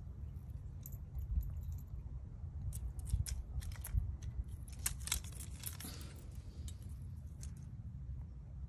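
A quick run of light clicks and rattles over a few seconds, starting about three seconds in, over a steady low rumble.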